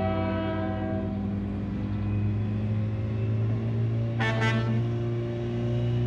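A multi-note train horn fades out about a second in, leaving a diesel engine running with a steady low drone. About four seconds in come two short, high toots.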